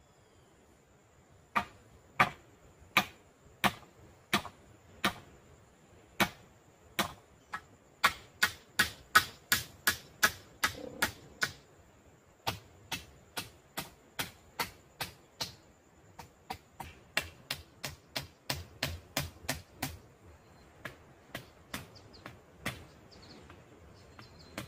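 Repeated sharp knocks of hammering on the wooden poles of a shelter frame, a blow every half second or so at first, quickening to about three a second around the middle, then steadier and softer near the end.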